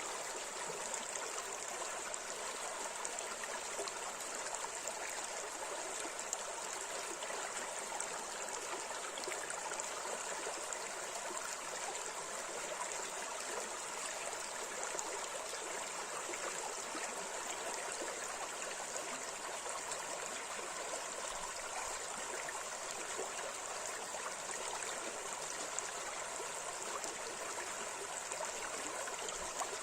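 River water running over shallow rapids: a steady, even rush of flowing water with no pauses.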